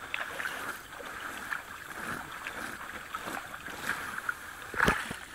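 Shallow water sloshing and splashing as hands and a wet landing net are worked in it, in small irregular splashes, with one louder splash near the end.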